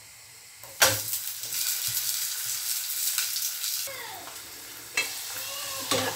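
A paratha laid into hot oil in a frying pan starts sizzling loudly about a second in and keeps frying steadily. Near the end a spatula knocks a couple of times against a cooking pot as it stirs.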